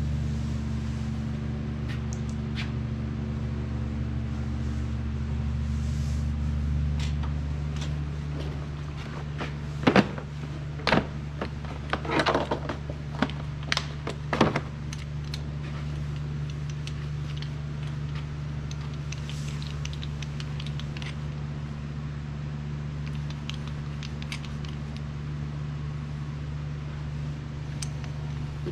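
A steady low machine hum, with a cluster of sharp metal clicks and knocks about ten to fifteen seconds in from tools and engine parts being handled during engine assembly.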